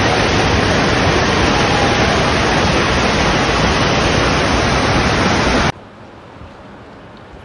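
Loud steady rushing of a muddy flash-flood torrent pouring down a street and carrying cars along. After about five and a half seconds it cuts off suddenly to a much quieter steady noise.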